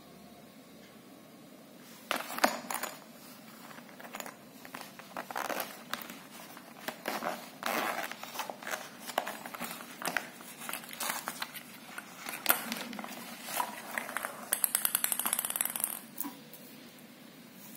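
Plastic wrapping crinkling and rattling as a zippered table tennis bat case is handled, then a zipper pulled open in a fast, even run of ticks near the end.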